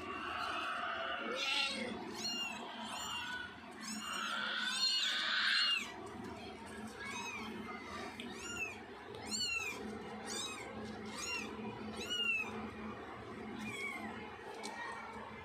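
Newborn kittens mewing: a run of short, high-pitched squeaking cries, about one a second. There are louder, longer cries at the start and again about four to six seconds in.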